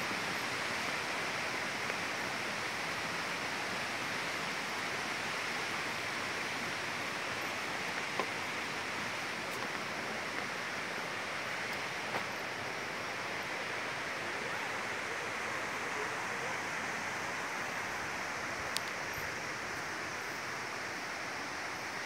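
Steady rush of flowing water, with a few faint clicks scattered through it.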